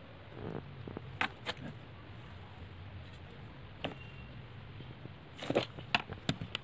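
Scattered sharp clicks and knocks over a low steady hum, with a denser cluster of clicks a little past five seconds in.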